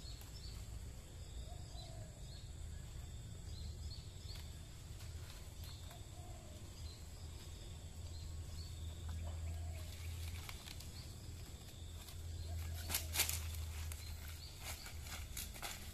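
Quiet outdoor ambience with a steady low rumble and a few faint bird chirps. Near the end come sharp crackles of dry leaves and palm fronds underfoot, loudest about thirteen seconds in.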